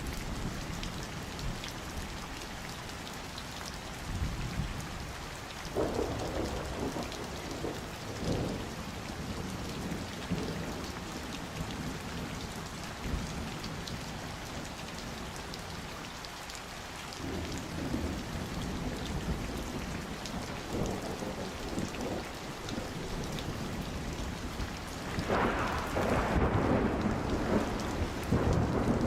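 Steady summer rain falling, with thunder rumbling in several rolling surges, the loudest near the end.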